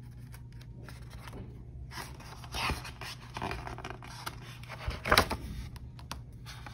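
Paper rustling as a picture-book page is handled and turned, with a sharp rustle of the page just after five seconds in, the loudest sound.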